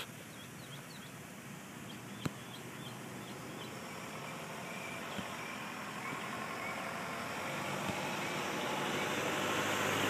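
Steady outdoor noise like distant road traffic, growing gradually louder, with a few faint high chirps and one click about two seconds in.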